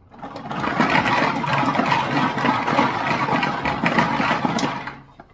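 Numbered plastic lottery balls tumbling and clattering inside a hand-cranked clear acrylic lottery drum as it is turned to mix them, a dense rattle that builds up in the first second and dies away near the end.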